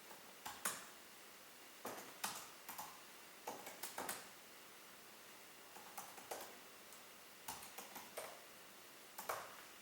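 Computer keyboard keys clicking in short, irregular bursts of keystrokes, with pauses of a second or two between them.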